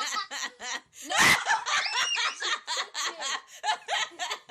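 A person laughing hard in quick, rhythmic bursts, with a louder outburst about a second in.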